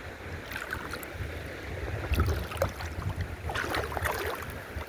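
A person wading through river water, legs pushing and splashing irregularly, the splashing busier near the end, over a steady low rumble.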